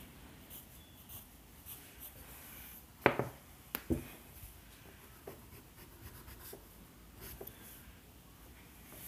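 Pencil scratching on paper in short strokes as lines are drawn. There are two sharper knocks about three and four seconds in.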